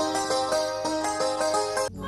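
Film background music: a quick melody of short, ringing notes, about four a second, that cuts off abruptly near the end.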